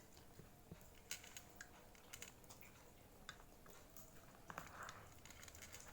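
Faint sounds of someone eating fried instant noodles: scattered soft clicks of chewing and the fork or spoon, with a brief louder noisy sound about four and a half seconds in.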